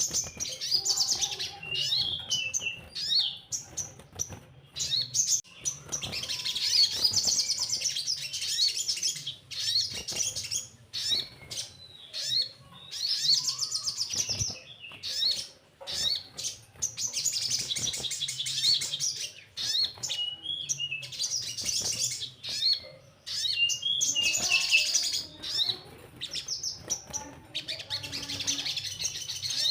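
Crimson sunbird (sogon) singing: bursts of rapid, high-pitched trilling chatter lasting a second or two, coming again every few seconds, with short sharp chirps in between.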